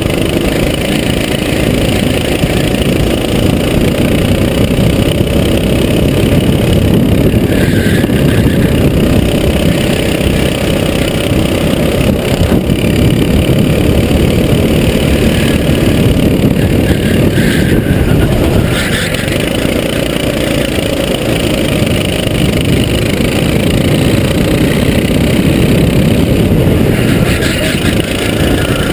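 Sodi SR4 racing kart's engine running continuously at race pace, heard close from the kart itself, with a heavy rumble of rushing air on the microphone.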